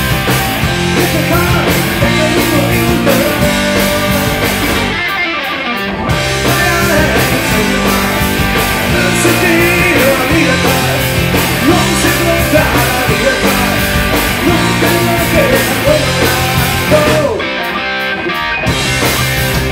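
Rock band playing live: electric guitar, electric bass and drum kit, with a male voice singing. The band cuts out briefly twice, about five seconds in and again near the end.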